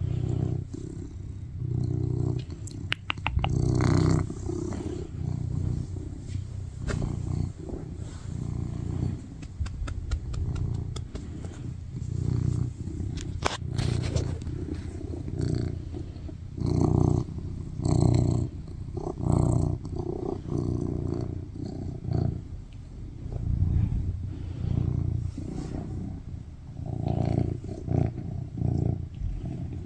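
Tuxedo cat purring loudly, the low rumble swelling and fading with each breath about every second or two. A few brief clicks come through near the start and about halfway.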